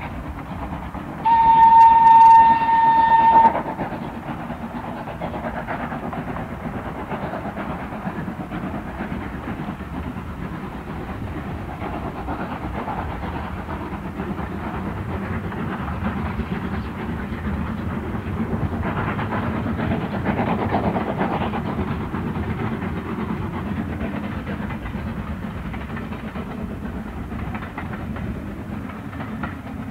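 LSWR S15 4-6-0 steam locomotive No. 506 gives one steady, single-note whistle of about two seconds near the start. It then works steadily past with its train, the running sound swelling a little after halfway.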